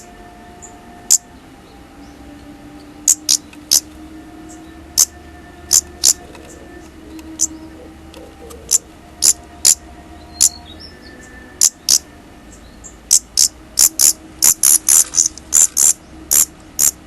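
Daurian redstarts giving short, sharp, high-pitched call notes, scattered at first and then coming in a quick run of a dozen or so near the end.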